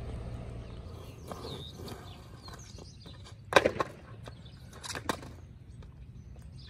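Skateboard landing hard on an asphalt street, a quick cluster of clattering cracks about halfway through, then two more wooden clacks about a second and a half later. Birds chirp faintly in the background.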